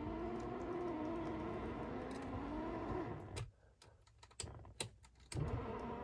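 Cabin noise of a 2014 Dodge Grand Caravan's 3.6-litre V6 and road hum while driving, the engine tone wavering a little in pitch. About three and a half seconds in, the sound drops away for about two seconds with several sharp clicks, then the hum returns.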